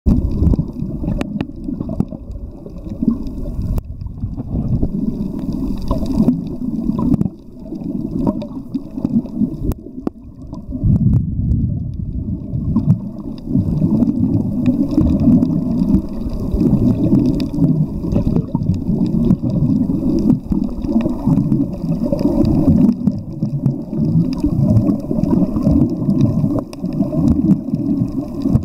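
Water heard underwater: a muffled, churning low rumble and gurgle that swells and falls irregularly, with a few faint clicks.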